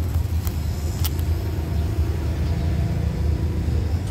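Low, steady rumble of a diesel-electric locomotive, with two sharp clicks about half a second and a second in.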